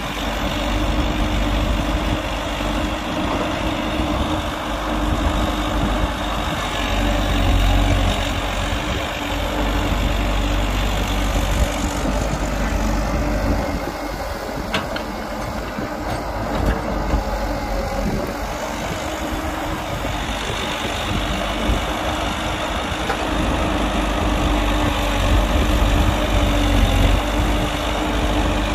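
Diesel engines of heavy earthmoving machinery running steadily: a continuous low rumble with a steady drone, from an excavator working and loading a dump truck.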